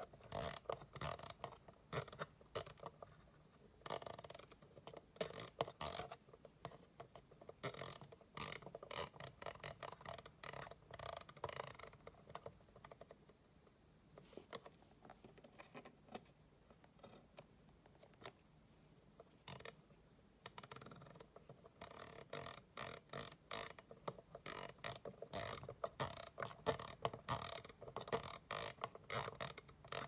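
Mechanical rotary encoder turned back and forth by hand, faintly clicking through its detents in quick runs, with fingers rubbing on the metal shaft; the clicking thins out for a stretch in the middle.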